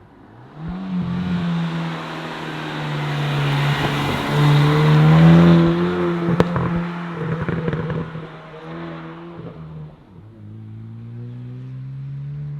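Four-cylinder engine of a Hyundai N hot hatch (i30N or i20N) revving up hard and held at high revs, then dropping away near 10 s before building again. There is a single sharp crack from the exhaust about six seconds in.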